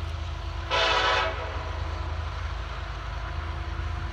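Horn of an approaching freight train's lead SD70ACE diesel locomotive, one short blast of about half a second, about a second in. A low steady rumble runs underneath.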